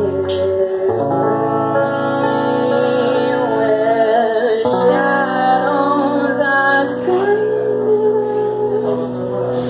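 Electric guitar playing slow, sustained chords, changing chord about a second in and again near the middle.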